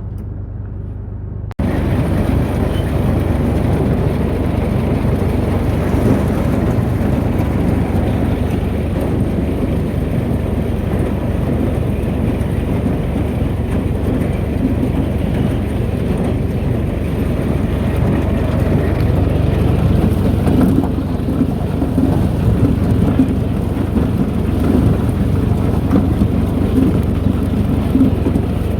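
Corn elevator running, ear corn clattering steadily up the chain into the crib in a loud, dense rattle that starts suddenly about a second and a half in.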